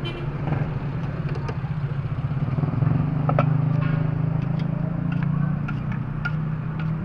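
A motor vehicle engine running steadily close by, its low hum growing louder from about three seconds in and easing off again after about five seconds. Scattered light clinks and scrapes of a ladle and utensils against a metal pot and wooden board sound over it.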